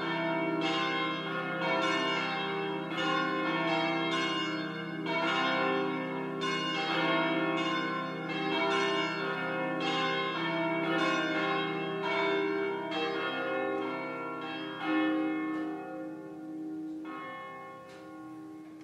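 Church bells ringing, a steady run of strikes about two a second, each ringing on. The strikes thin out late on and the ringing dies away near the end.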